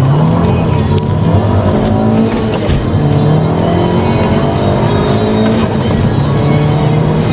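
Tuned VW Passat B7 2.0 TSI turbo four-cylinder, fitted with a K04 turbocharger and a 76 mm downpipe and mapped to about 310 hp, accelerating hard. Its pitch rises through each gear, with two upshifts about three seconds apart.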